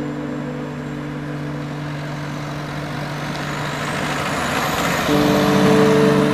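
A car driving up and past, its tyre and engine noise swelling and loudest about five to six seconds in, over background music with long held notes.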